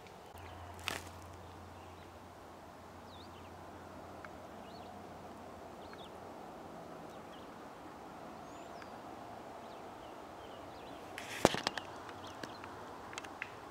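Outdoor woodland ambience: small birds chirping faintly now and then over a steady background hiss. There is a short knock about a second in and a louder, sharper one near the end.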